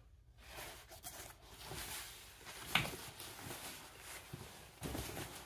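Hockey pants' nylon shell and padding being handled and turned over: rustling and rubbing of fabric, with a sharper knock a little before three seconds in.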